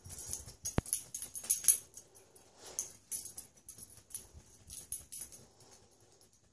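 A border collie–kelpie cross wriggling and rubbing himself on carpet and against furniture after a bath, making irregular scuffling and scratching noises that are loudest in the first couple of seconds, with one sharp click about a second in.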